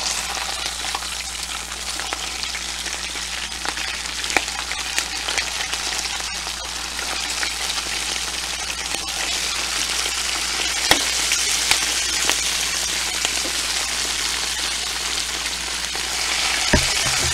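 Hot deep-fryer oil sizzling and bubbling steadily as foil-wrapped chicken parcels are dropped in one by one, with a few sharp clicks along the way.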